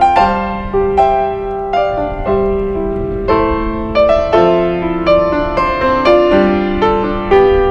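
Background piano music: a slow, gentle melody of single struck notes and chords, each note ringing and fading before the next.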